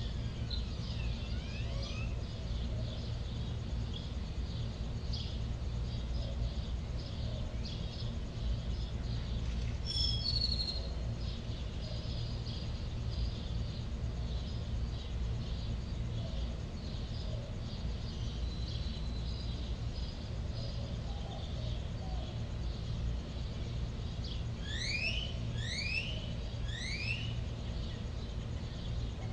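Outdoor ambience laid under the footage: a steady low hum with many short high chirps throughout. Near the end comes a quick run of about six rising chirps, typical of bird calls.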